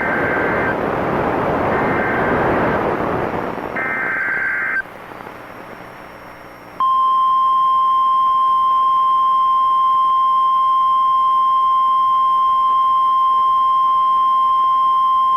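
Three short bursts of warbling digital data tones, the Emergency Alert System's SAME header, over radio static. After a brief pause comes the steady 1050 Hz NOAA Weather Radio warning alarm tone, held for about nine seconds, which heralds a newly issued tornado warning.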